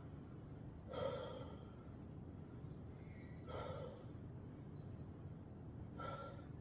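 A man breathing hard from exertion during a weight-training session: three heavy exhalations about two and a half seconds apart, over a low background hum.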